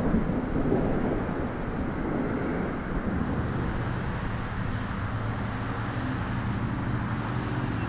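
Low outdoor rumble, with a steady engine hum of a vehicle coming in about halfway through.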